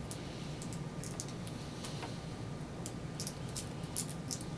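Small plastic-and-metal clicks of a Master 3-wheel combination padlock's dials being turned by hand to set a new combination, scattered at first and coming faster near the end, over a low steady hum.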